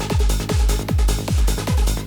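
Hard techno music: a deep kick drum about twice a second, each hit dropping in pitch, over a sustained low bass.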